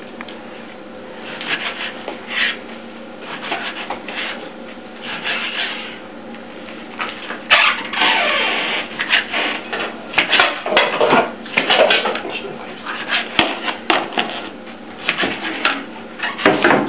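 Kitchen knife dicing mallard breast meat on a plastic cutting board: irregular knocks and scrapes of the blade against the board, with a few sharper clicks and a louder scraping stretch about eight seconds in.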